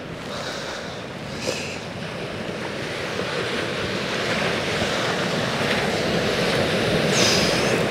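Sea surf washing on the shore, with wind on the microphone; the wash grows gradually louder over several seconds.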